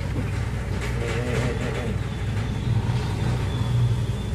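Steady low hum of a tanker's engine and machinery, under a haze of wind and rushing sea as waves break over the bow.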